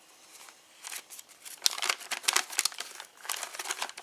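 A paper instruction sheet being unfolded and handled: irregular crinkling and rustling of paper, busier from about a second in.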